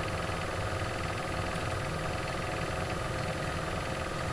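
Steady background hum with a few constant tones over a low rumble, the sort a computer's cooling fan makes when picked up by a desk microphone.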